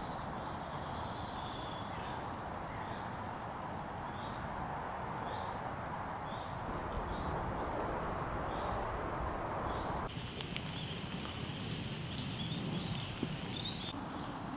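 Woodland birdsong over a steady rushing background: a small bird repeats a short high note about every half second. About ten seconds in, the background turns to a brighter hiss with more chirping.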